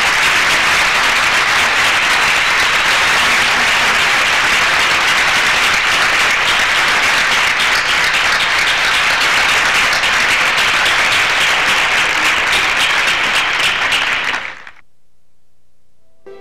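Audience and performers applauding, a dense steady clapping that breaks off abruptly about fifteen seconds in.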